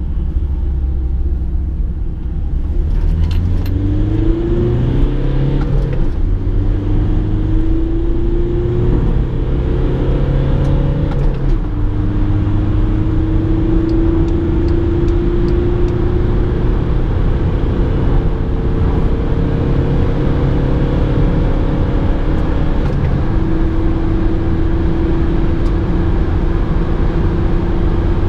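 Volkswagen Caddy 2.0 TDI four-cylinder turbodiesel pulling hard under full-throttle acceleration, heard from inside the cabin. The engine note climbs steadily in each gear and drops at three upshifts, about 6, 11 and 23 seconds in, over a steady rumble of road and wind noise.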